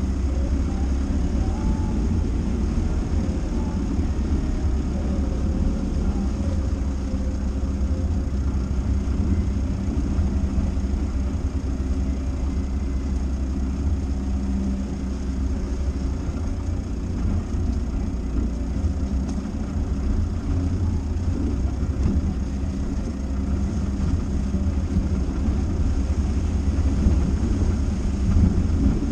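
Dacia Duster driving: a steady low engine and road rumble with no breaks.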